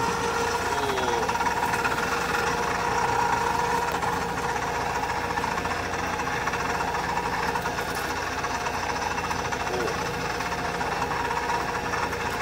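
Small fishing boat's engine and net-hauling gear running steadily, with a steady whine over the engine's rumble, while a gill net is hauled aboard.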